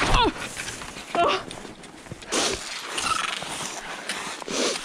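Cross-country skiing: skis gliding and scraping in a groomed track in very cold snow, in irregular swishes, with two brief pitched squeaks or calls in the first second and a half.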